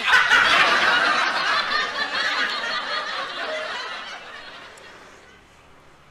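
Laughter, loud at first and fading away over about five seconds.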